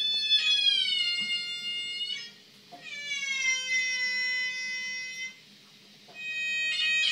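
Moog synthesizer playing long held notes, each about two seconds, sliding slowly down in pitch with a meow-like sound, separated by short pauses; a third note begins near the end.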